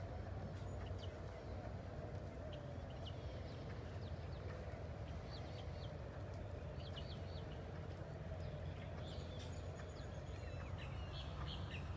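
Quiet outdoor ambience: a steady low rumble with small birds chirping in short runs now and then, more often near the end.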